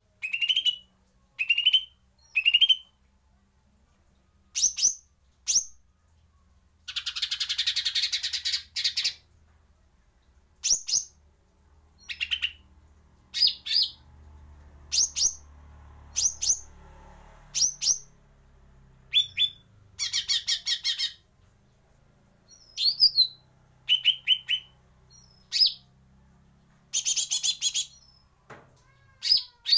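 Female lesser green leafbird (cucak ijo mini) calling in a chatty way: repeated short, sharp chirps, some rising quickly in pitch. These are broken three times by a harsh, buzzy rattle lasting a second or two.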